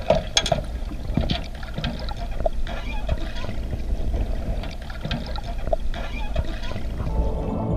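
Water and bubbles heard through a submerged microphone: a steady low rumble with irregular bubbling pops and clicks.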